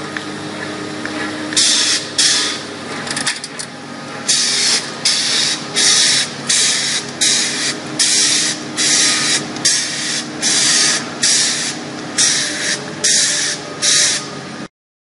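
Airless-style spray gun hissing in short repeated bursts, about one a second, as a liquid waterproofing coating is sprayed onto a concrete foundation wall, over a steady low hum. The sound cuts off suddenly near the end.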